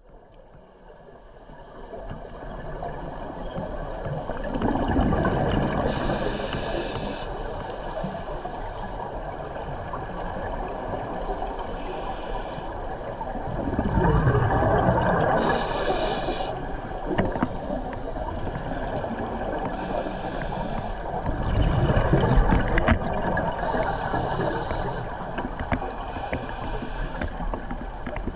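Underwater sound of scuba divers: a muffled rumble and gurgling of exhaled bubbles, with a brief hiss from a regulator every four seconds or so as the divers breathe.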